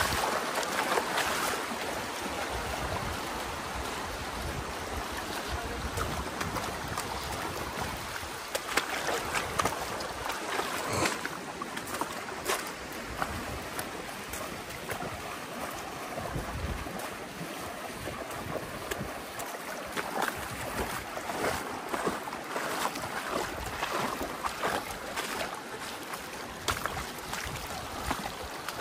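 River water rushing steadily, with irregular splashes and knocks throughout. Low wind rumbles hit the microphone now and then.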